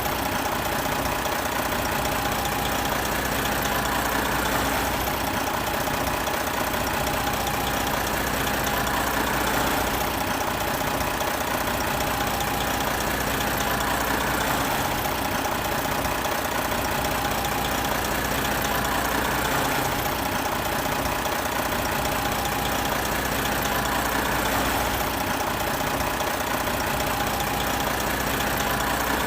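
Big truck's diesel engine idling steadily, its note swelling slightly and easing back about every five seconds.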